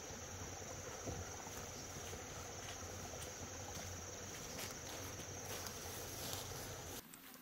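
A steady, high-pitched chorus of insects shrilling in the forest over a faint background hiss, with a few soft knocks; it cuts off abruptly near the end.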